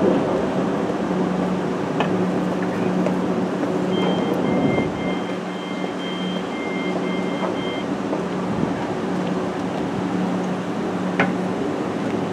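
Class 379 Electrostar electric train standing at the platform with its doors open, its equipment giving a steady low hum. An electronic two-tone beeping sounds for about four seconds in the middle, and there are a few sharp clicks.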